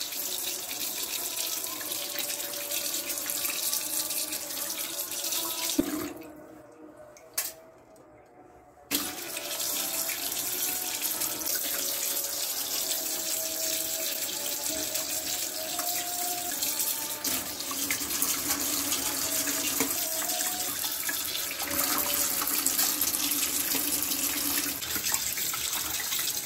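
Kitchen tap running into a stainless steel sink, the stream splashing over fish steaks as they are rinsed by hand. The water stops about six seconds in and comes back about three seconds later.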